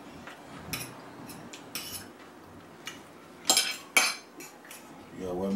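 Metal fork clinking and scraping against a dinner plate as food is picked up: a string of sharp clicks, the loudest two about half a second apart a little past the middle. A short hummed voice sound comes near the end.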